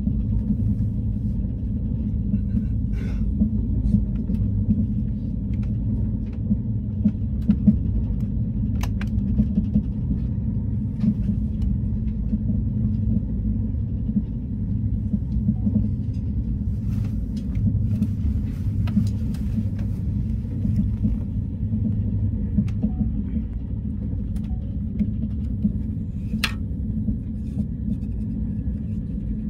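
A train running, heard from inside the passenger car: a steady low rumble with a few faint clicks over it.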